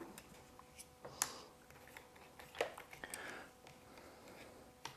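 Faint, scattered clicks and light scraping of a screwdriver being worked on a chainsaw, with two sharper clicks, one about a second in and one midway.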